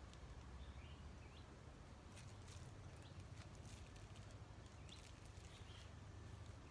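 Quiet garden ambience: a faint low rumble with a few short, high bird chirps scattered through, and some light clicks.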